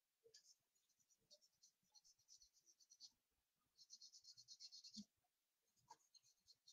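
Faint scratching of charcoal on drawing paper: quick short strokes in bursts, with a dense run of rapid strokes about four seconds in.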